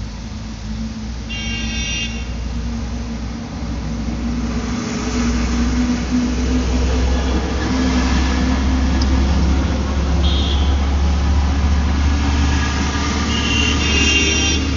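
A motor vehicle's engine rumbling steadily close by, swelling louder about four to five seconds in and holding, with short high-pitched tones sounding over it near the start and again near the end.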